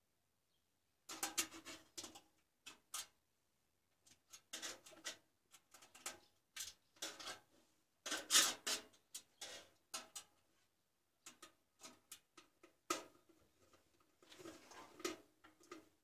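Screwdriver and screws working against a steel computer case's drive cage: irregular clusters of small metallic clicks and scrapes, starting about a second in.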